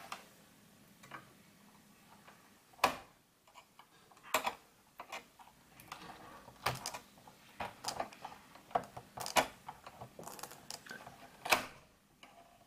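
Irregular sharp clicks and taps of small hand tools being handled, with tweezers being worked at the computer's circuit board.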